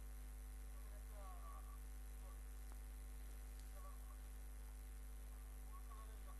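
Steady low electrical hum (mains hum on the recording line), with faint, indistinct wavering sounds over it.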